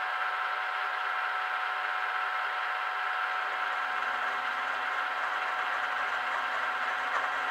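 Geared mill-drill running at its slow 280 rpm speed with a steady gear whine, a four-flute end mill taking a 2 mm cut in cast iron. A lower rumble joins about three seconds in.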